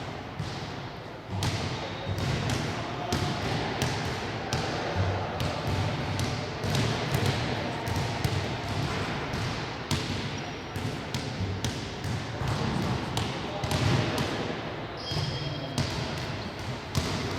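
Basketball game: a basketball bouncing repeatedly on a hard court, under players' shouting voices, with a few short high tones.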